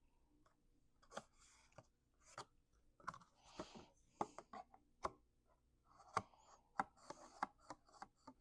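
Cardstock being handled and pressed into place on a paper box: faint scattered crisp clicks and short paper rustles.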